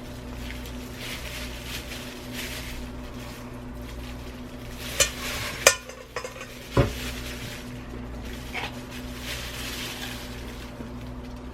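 Metal rotisserie spit and forks handled while marinated Cornish hens are skewered on them: soft scraping and rubbing, with three sharp metal clinks a little past halfway, the last one with a dull thud. A steady low hum runs underneath.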